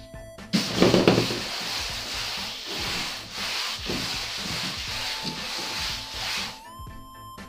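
Gloved hands scrubbing back and forth across a tabletop, trying to rub away a spill of wet paint. The rubbing starts about half a second in, is loudest at first, and stops about a second before the end.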